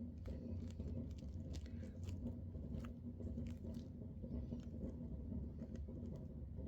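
Rain pattering, with irregular light taps and clicks over a steady low noise.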